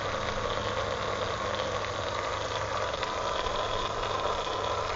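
Steady hiss of a water jet spraying straight up from a hose-fed water rocket launcher, with a low steady hum underneath.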